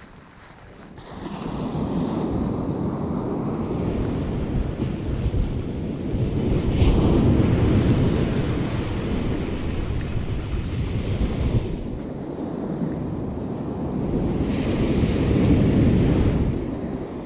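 Ocean surf breaking and washing up the beach, swelling louder twice, once about halfway in and again near the end, with wind buffeting the microphone.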